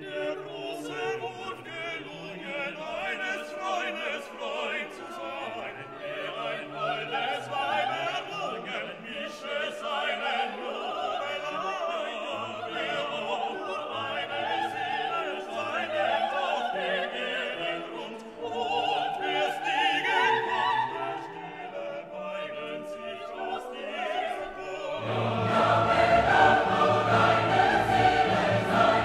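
Background music: classical orchestral music with operatic singing, growing louder and fuller near the end.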